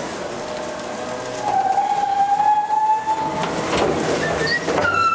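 Packer mechanism of a MacDonald Johnston side-loader garbage truck working inside the body: a mechanical clatter with a long steady squeal about a second and a half in, a few knocks, and another, higher squeal starting near the end.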